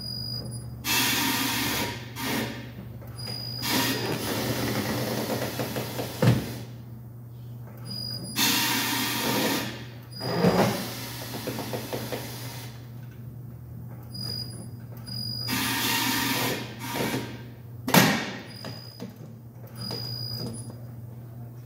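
Tire-changing machine at work mounting a large low-profile tire: a steady machine hum, four hissing blasts of air about a second long, and three sharp metallic clanks.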